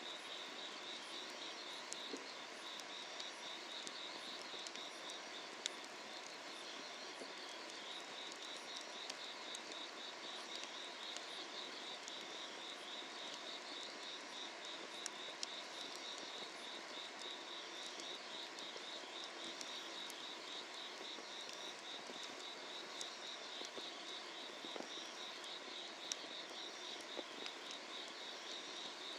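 Summer-night field insects trilling steadily in fast pulses, with a few sharp crackles from firewood burning under a cast-iron cauldron.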